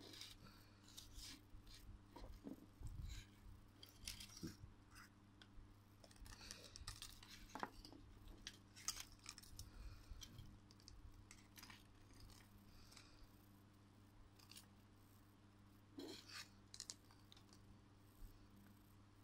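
Faint, scattered clicks and rustles of small plastic keychain figures, their metal chains and cardboard backing cards being handled, over a low steady hum.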